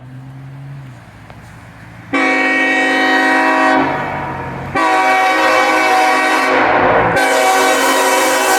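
Diesel locomotive air horn sounding a chord in two long blasts. The first comes about two seconds in, after a low steady drone, and eases off around four seconds. The second starts about five seconds in and is held to the end.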